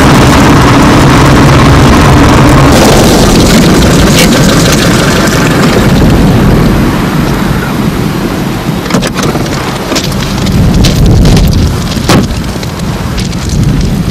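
Car running with a steady low rumble of engine and road noise. About six seconds in it eases to a hiss broken by a few sharp knocks.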